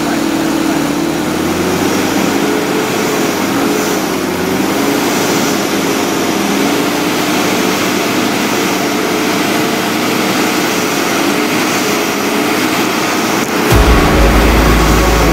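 A 4x4's engine revving under load with its pitch rising and falling unevenly, as the vehicle struggles in a deep mud hole. Near the end a much louder, deep sound cuts in suddenly.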